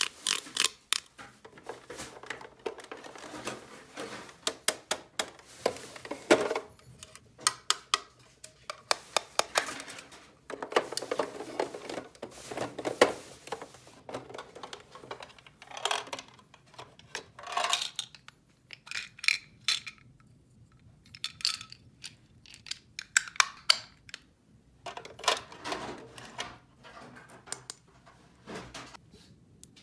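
Small plastic toy pieces being handled, clicking and clinking against each other and the table at an irregular pace, with stretches of rustling.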